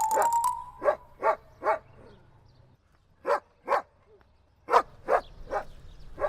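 A dog barking in short groups: three barks, then two, then three more, each group a few barks about half a second apart. A rising musical tone fades out in the first second.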